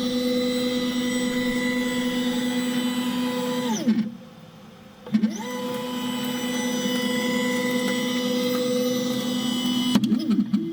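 3D printer's stepper motor driving the build plate along the Z-axis lead screw, a steady whine that rises in pitch as it speeds up and falls as it slows, spreading fresh lube along the Z rod. It stops about 4 seconds in, starts again about a second later, and winds down near the end.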